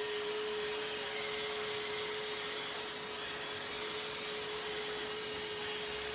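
Robot vacuum cleaner running steadily: an even motor whir with a constant hum.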